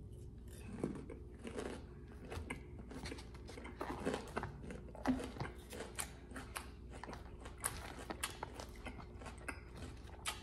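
A person chewing mouthfuls of crisp lettuce salad close to the microphone: irregular crunches and wet mouth clicks, with light taps of a fork picking at salad in a plastic bowl.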